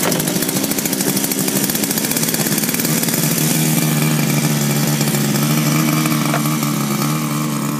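Small 26cc two-stroke gas engine of an R/C speedboat catches just after a pull-start and runs steadily at a constant speed, with no revving.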